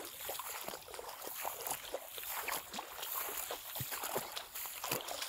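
Footsteps wading through a wet rice paddy: irregular small splashes and the swish of rice plants against the legs.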